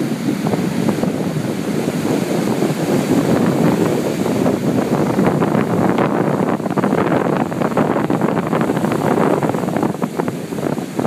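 Ocean surf breaking and washing up a beach, with wind buffeting the microphone.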